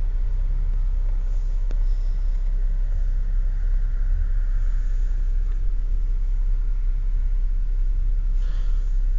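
Steady low rumble of a car, heard from inside the cabin: engine and road noise at an even level.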